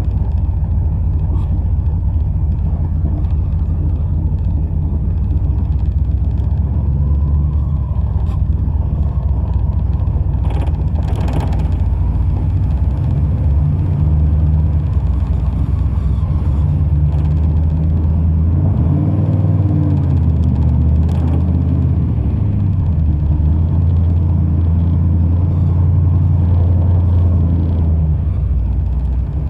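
1985 Dodge D150's 408 Magnum stroker V8 running while the truck is driven, a loud, steady low rumble whose pitch rises and falls a few times about two-thirds of the way through.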